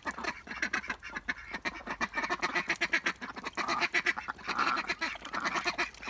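A small flock of domestic ducks (Indian runners, Appleyards and a Swedish black) quacking and chattering continuously while they feed, many short calls overlapping.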